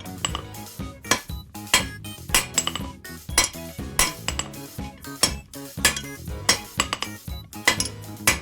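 Hand hammer striking steel on an anvil at a steady pace, about one and a half sharp metallic blows a second, over background music.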